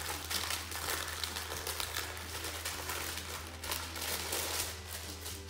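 Greaseproof baking paper crinkling and rustling continuously as it is rolled by hand around a log of cookie dough on the countertop.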